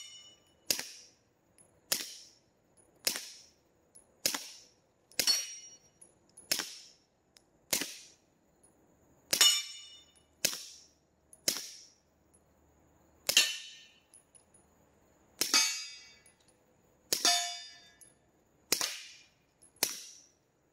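Suppressed Glock 17 9 mm pistol firing 147-grain hearing-safe rounds one at a time, about fifteen shots roughly a second apart: each a muffled puff with the slide cycling, with many followed by the ringing clang of a steel plate being hit.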